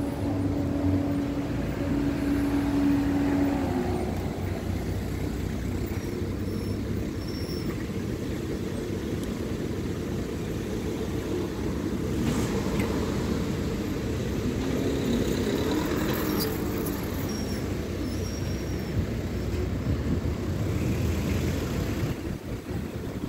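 Road traffic noise heard while moving along a street: a steady low rumble, with a steady engine hum that dies away about three and a half seconds in.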